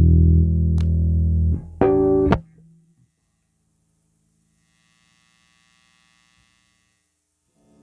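Squier Affinity Precision Bass PJ electric bass letting a low note ring, then a brief higher note about two seconds in that is cut off sharply, followed by near silence with only a faint hum.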